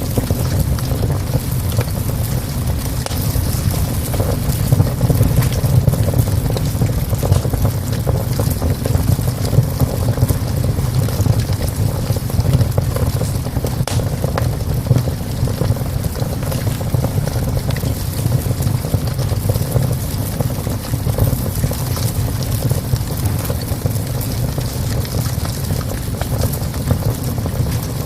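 Wood fire in a small stove burning hard, a steady low rumble with a few sharp crackles.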